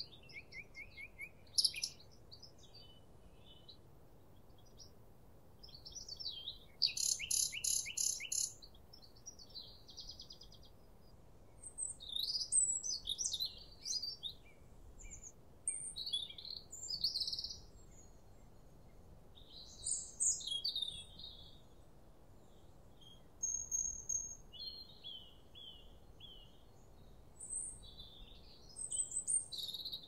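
Several songbirds singing in short phrases of chirps and whistles, with gaps of a second or two between them, including a rapid trill of repeated notes about seven seconds in. Faint wind noise runs underneath.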